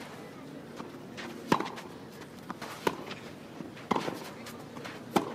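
Tennis rally on a clay court: a racket strikes the ball four times, about every second and a quarter, with fainter ticks between the hits.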